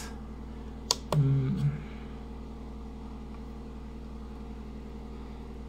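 A washing machine runs with a steady low hum in the background. About a second in there is a single sharp click, then a brief low voice sound.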